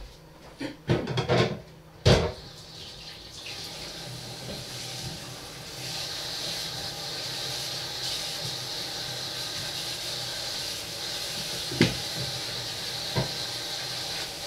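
Kitchen tap running into a sink as a steady rush of water that grows stronger about six seconds in. A few knocks and clatter of kitchenware come before it, and two light knocks near the end.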